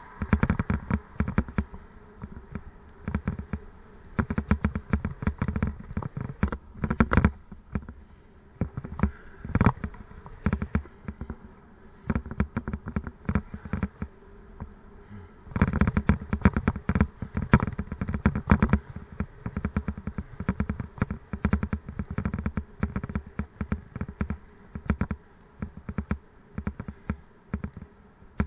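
Bicycle ridden over rough road: a fast, irregular rattle and buzz of the bike and the camera mount shaking with road vibration. It eases for a few seconds around the middle, then picks up again.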